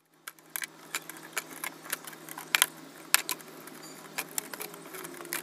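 Small round candies being picked up and dropped one after another into clear plastic jars, a run of irregular light clicks and clacks. A steady low hum runs underneath.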